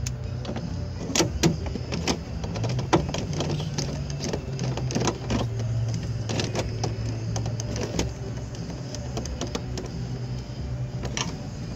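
Scattered clicks, taps and snaps as a screwdriver and hands work on a 2005 Saab 9-3 plastic driver's door trim panel, pressing it back into place, over a steady low hum.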